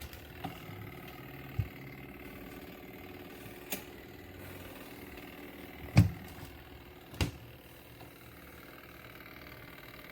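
Portable mini washing machine's motor running with a steady hum, broken by several sharp knocks, the loudest about six seconds in.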